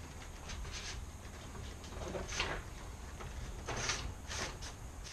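Two sections of a sailboat mast sliding together over a dry-lubricated inner splice: several short scraping slides, then a sharper knock at the very end as the sections meet.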